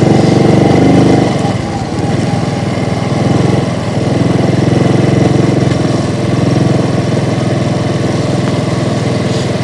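Motorbike engine running steadily while riding, with a brief dip in loudness about a second and a half in.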